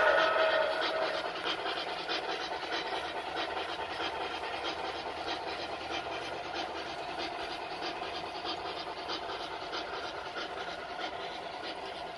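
HO scale model train running on its track: a whistle tails off about a second in, then the steady rolling clatter of the model's wheels on the rails as the coaches pass.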